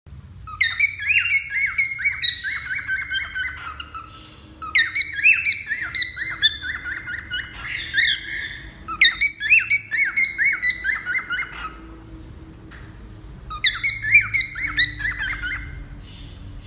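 Cockatiel singing: four phrases of quick warbling whistles and chirps that glide up and down, with short pauses between them.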